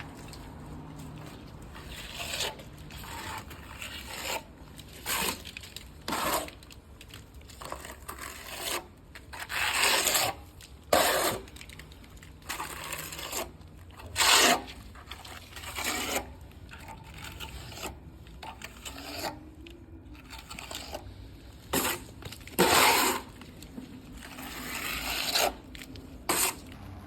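Stucco trowel scraping in irregular short strokes, each under a second, with the loudest strokes around the middle and again later on.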